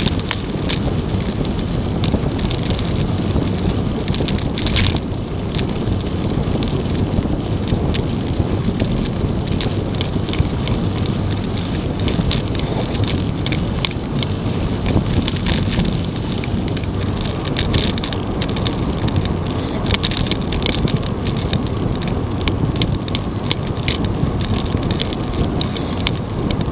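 Wind buffeting the microphone of a camera on a moving bicycle, over a steady rumble of tyres on pavement, with scattered light ticks and rattles.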